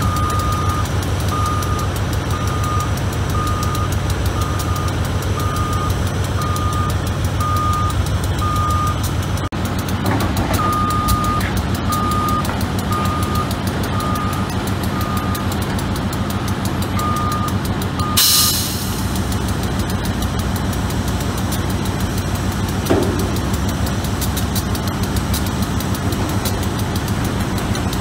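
Caterpillar wheel loader's diesel engine running while its reversing alarm beeps about once a second, with a brief break partway through. The beeping stops about two-thirds of the way in, at a short, loud hiss.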